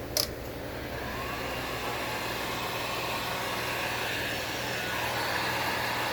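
Heat gun clicked on and blowing steadily as it shrinks heat-shrink tubing over a soldered wire joint, its fan coming up to speed in the first second.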